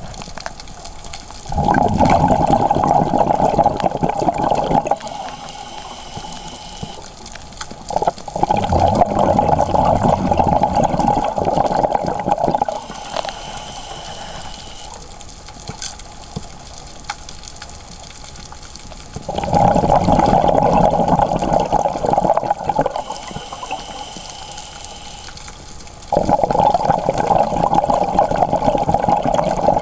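Scuba diver breathing through a regulator, heard through the underwater camera housing: four long bursts of bubbling exhalation, with quieter hissing inhalations between them that carry a faint high whistle.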